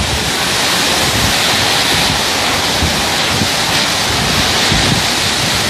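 Heavy rainstorm with strong wind: a loud, steady hiss of rain, with gusts buffeting the microphone in uneven low rumbles.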